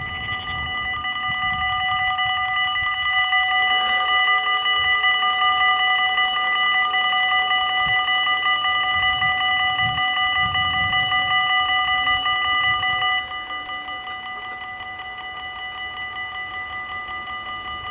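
Level-crossing bells of a Dutch automatic half-barrier crossing ringing with a fast, steady tone while the barriers lower, growing louder over the first couple of seconds. About thirteen seconds in the ringing drops to a quieter level, with the barriers down.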